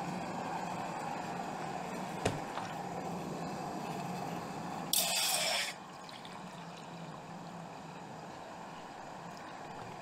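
Water poured from a plastic bottle into a titanium camping pot on a gas canister stove: a short, loud splashing pour about five seconds in. A single sharp click comes about two seconds in, over steady background noise.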